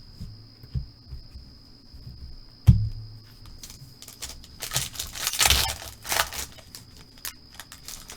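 A 2020 Mosaic Football trading-card pack wrapper being torn open and crinkled, in a few noisy bursts about five to six seconds in. A single thump comes shortly before, near three seconds in.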